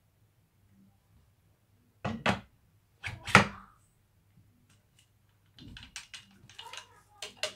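Metal stunt-scooter parts knocking together during assembly: two loud clanks about a second apart, the second ringing briefly, then a quick run of small clicks and rattles near the end.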